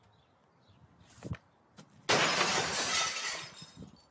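A sharp crack of a hockey stick hitting a ball, then about two seconds in a loud crash of glass shattering that trails off over about a second and a half.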